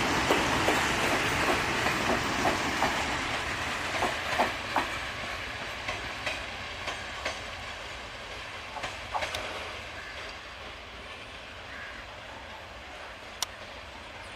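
Passenger train pulling away: its coach wheels clack over the rail joints, the clacks growing sparser and the rumble fading as the train draws off, with one last sharp click near the end.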